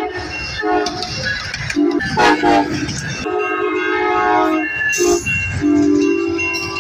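Amtrak Siemens Charger locomotive sounding its horn for a grade crossing in a series of short and long blasts, over the steady rumble of the train passing on the rails.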